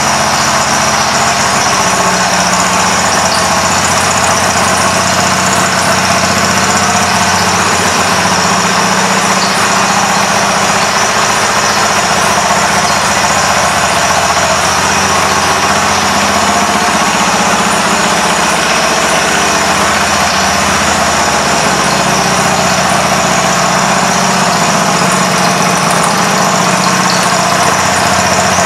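2006 Harley-Davidson Sportster 1200 Low's 1200 cc air-cooled Evolution V-twin idling steadily.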